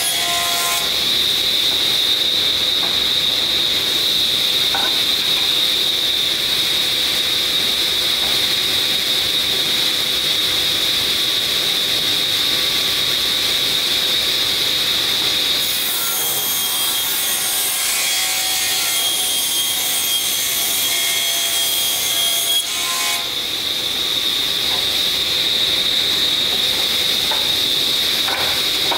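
Table saw running with a steady high whine from its spinning blade while ripping ash boards, the sound of the cut changing a couple of times as boards pass through.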